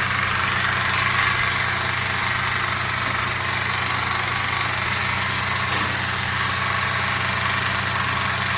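Electric water flosser running: its pump motor hums steadily under the hiss of the pulsing water jet, then switches off right at the end.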